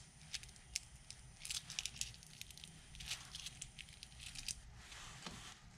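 Faint crinkling and small scattered clicks of fingers handling a small clear plastic grease packet and a small metal compressor-regulator piston while greasing its O-rings. The clicks are densest in the middle and thin out near the end.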